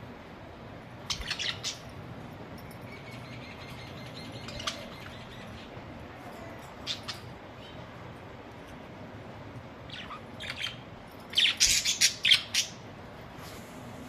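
Budgerigars chirping and squawking in short calls: a few scattered calls, then a loud burst of rapid calls about eleven to twelve seconds in.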